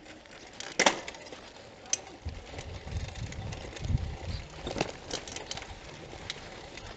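Bicycle rolling over a rutted dirt road, rattling and knocking over the bumps, with a sharp knock about a second in and a low, uneven rumble underneath.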